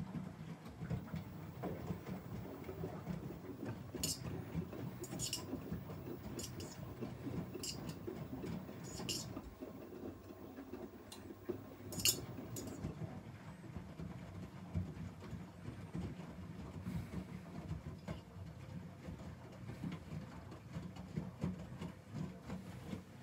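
Front-loading washing machines washing: a steady low churning of the tumbling drum and water, with a few sharp clinks in the first half.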